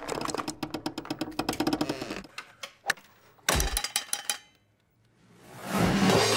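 A homemade chain-reaction machine of wooden sticks and string clattering as it runs: a fast run of small wooden clicks and knocks, then a louder burst of knocks about three and a half seconds in. After a brief pause, a swell of noise rises near the end.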